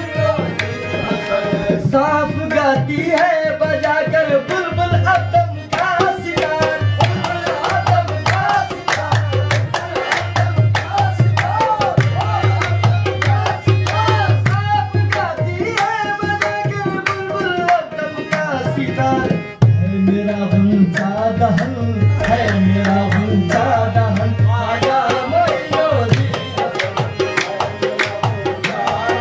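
Qawwali music: tabla drumming a steady rhythm under a wavering melody with singing voices.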